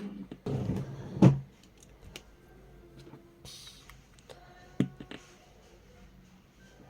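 Handling noise and clicks from a portable Bluetooth pill speaker being operated: a rustle ending in a sharp click about a second in, a brief hiss midway, more clicks, and a few faint short tones in between.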